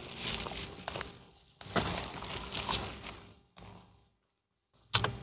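Paper and plastic crinkling and rustling in two short stretches as a fast-food milkshake cup and its paper straw wrapper are handled, then a single sharp click near the end.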